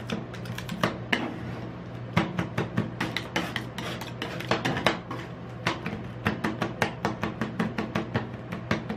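Metal spatulas chopping and scraping ice cream and cream on the steel plate of a rolled ice cream cold plate: quick, uneven knocks several times a second with scrapes between them, over a steady low hum.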